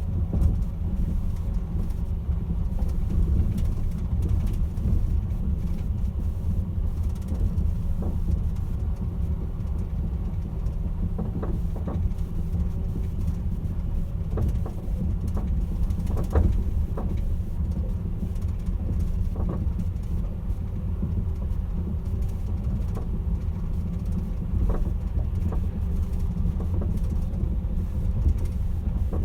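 Caledonian Sleeper train making a steady low rumble, with scattered short clicks and creaks every few seconds.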